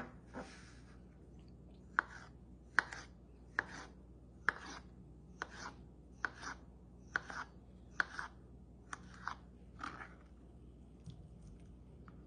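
Kitchen knife slicing soft canned pears into thin slices on a cutting board: a dozen or so sharp taps of the blade on the board, each with a short swish, a little under a second apart, stopping about ten seconds in.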